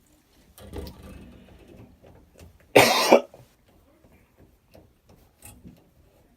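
A person coughing once, loudly, about three seconds in, amid faint handling and rustling noises.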